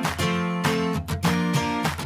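Background music: a strummed guitar playing chords in a steady rhythm.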